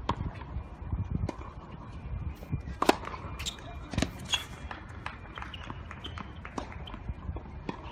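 Tennis being played: sharp knocks of tennis ball strikes and scuffing footsteps on the court. The loudest knock comes about three seconds in, and another about a second later.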